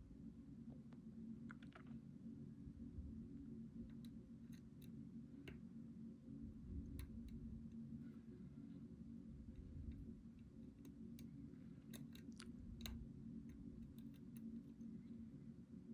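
Faint, irregular clicks of a lock pick working the pins of a pin-tumbler challenge lock, a dozen or so scattered ticks, over a steady low hum.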